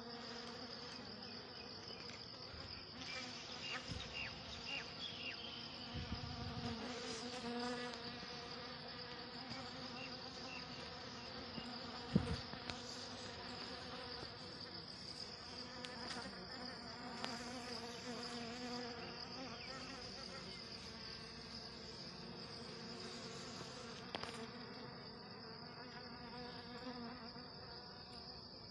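A dense cluster of honeybees on an open wild comb buzzing in a steady, unbroken drone. A single sharp knock comes about twelve seconds in.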